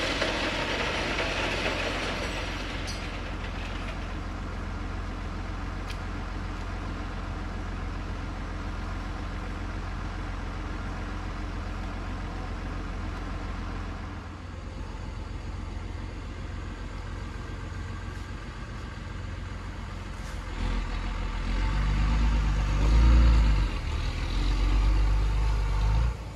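Tow truck's engine idling steadily as a low hum, with a louder low rumble in the last few seconds.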